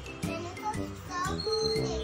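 Background music with a steady held note from about halfway through, under a child's voice speaking.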